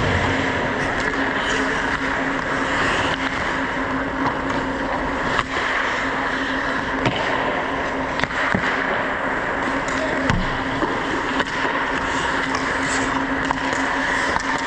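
Ice hockey skates scraping and gliding on rink ice, heard close up from a player's point of view, over a steady low hum, with several sharp clacks scattered through.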